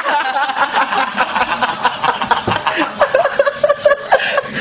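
People laughing and chuckling, with talk mixed in.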